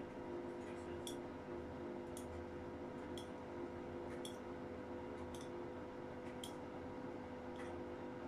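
A household appliance running with a steady hum, with a sharp click about once a second.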